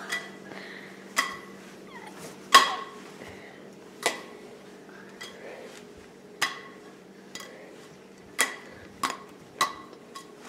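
A handful of sharp clinks and taps of a plate, about eight, irregularly spaced, as a pancake is tossed off it and caught again. A low steady hum runs underneath.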